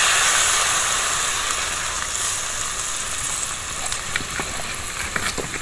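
Water poured into a hot kadai of frying flat beans and mustard paste, hissing and sizzling loudly at first and dying down. A few light clicks of a spoon against the pan come near the end.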